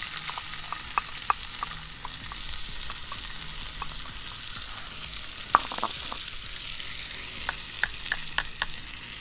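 Chopped onions sizzling in hot bacon fat in a cast-iron pan over a wood fire, a steady hiss with scattered sharp pops and one louder click about halfway through.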